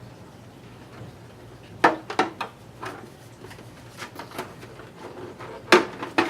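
A few sharp plastic clicks and knocks as a large-scale RC buggy's plastic body shell is handled and set onto the chassis. There is a pair about two seconds in and the loudest pair near the end.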